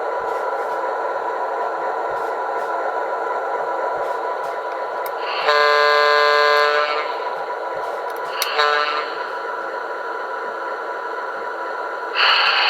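Recorded diesel locomotive sound effect from a QSI Maxx Traxx model-train sound panel: the diesel engine runs steadily while a single-chime horn sounds one blast of over a second about five and a half seconds in, then a short toot about two seconds later.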